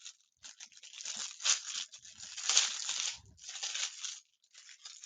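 Packaging crinkling and tearing as a cross-stitch kit is opened by hand, in about three rustling spells.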